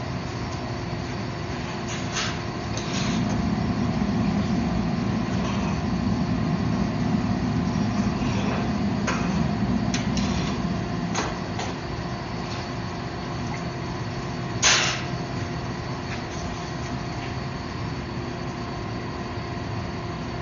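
Steady hum of workshop machinery with several constant tones. A louder low hum builds for several seconds, then eases off, and a single sharp knock comes about two-thirds of the way through.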